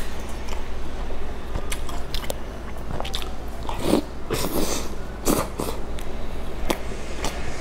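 Biting into a milk-dipped biscuit and chewing it close to the microphone: scattered sharp crunches and mouth sounds, the loudest bites about four and five seconds in.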